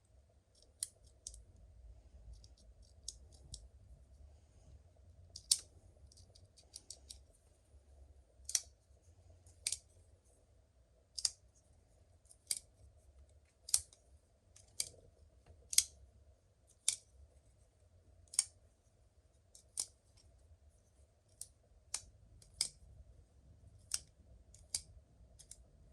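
Hogue Deka folding knife being flicked open and snapped shut over and over, its crossbar lock clicking sharply about once a second, with faint small clicks between the snaps early on. The owner thinks the pivot bearings might need a little oil.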